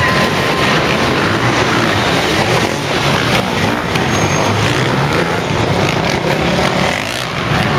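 Several motocross bikes' engines running and revving at once, the pitch rising and falling as the riders throttle on and off over the jumps.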